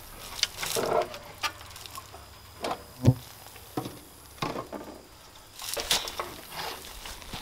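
Scattered clicks and knocks of a small solar panel being worked loose from its mounting bracket by hand, with one sharper knock about three seconds in.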